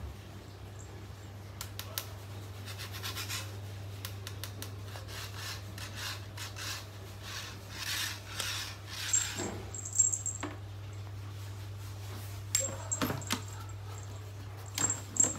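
Light clicks, clinks and rustles of a plastic litter scoop being waved and swatted at by a cat, louder in short clusters about two-thirds of the way in and near the end, over a steady low hum.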